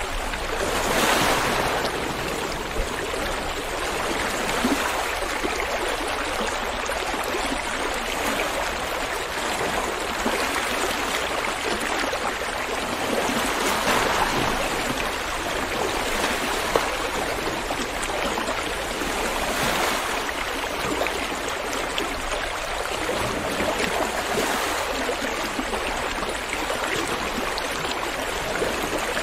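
Ocean surf: a steady rush of waves washing in, swelling and fading every several seconds.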